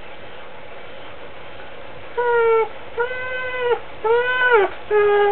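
Large black dog whining while hanging by its teeth from a sack: four drawn-out high whines in a row, starting about two seconds in.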